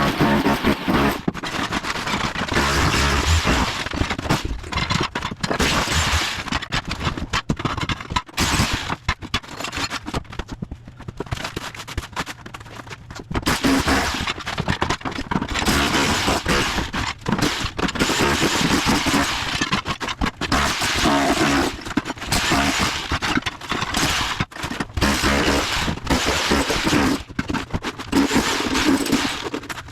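Bosch Bulldog Max SDS-Plus rotary hammer with a tile chisel bit hammering rapidly, chipping floor tile and cement board loose. It pauses briefly about ten seconds in, then starts again.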